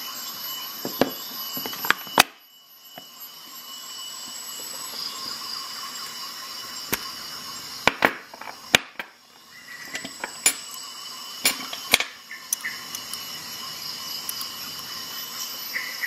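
Scattered sharp clicks and taps of small metal tool-adapter parts being handled and set down on a hard work surface, about ten in all at irregular intervals, over a steady background hiss.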